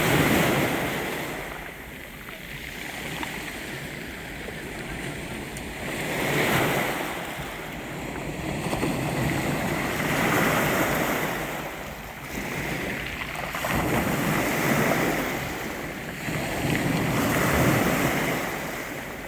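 Sea waves breaking and washing back, the surf noise swelling and fading about every four seconds, five surges in all.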